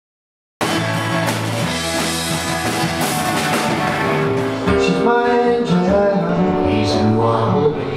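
Half a second of silence, then a live indie rock band playing with electric guitars, bass and drums. About four and a half seconds in, it cuts to a man singing with a guitar.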